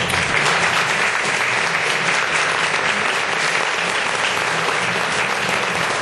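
Audience applauding steadily, a dense continuous clapping.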